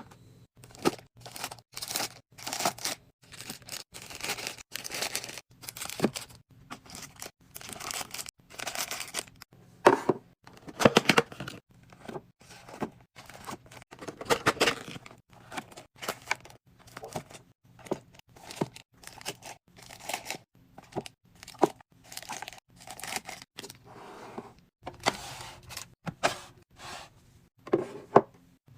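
Close-up sounds of restocking a fridge: packaging crinkling and tearing, with items clicking and clattering as they are unpacked and set in place, in an irregular run of short rustles and knocks.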